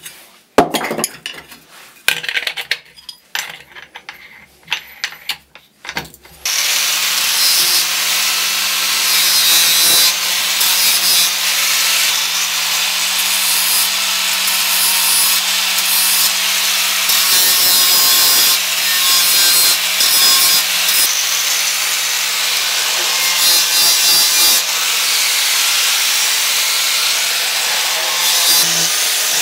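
Hand file scraping across a steel cleaver blade in separate strokes for about six seconds. Then an angle grinder runs, grinding the steel with an abrasive disc, its motor pitch sagging each time the disc is pressed into the work and recovering as it eases off.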